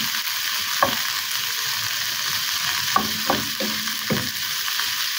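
Kangkong (water spinach) stems sizzling in a frying pan with onion and garlic, the steady hiss coming from the water the stems release, no water added. A wooden spatula stirs and knocks against the pan, once about a second in and several times in quick succession around three to four seconds in.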